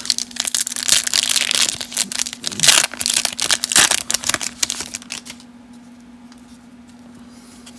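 Foil wrapper of a 1991 Leaf Studio baseball card pack crinkling and tearing as it is ripped open by hand, with dense crackling that stops about five seconds in.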